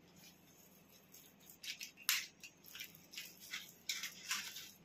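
Small parts of a metal construction kit, with its nuts, bolts and screws, clicking and rattling as they are handled, in a few short bursts in the second half.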